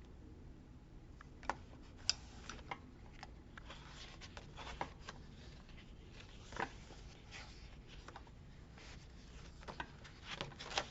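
Faint handling of paper and stickers: scattered light taps and clicks with soft rustling as pieces are picked up and pressed onto the page.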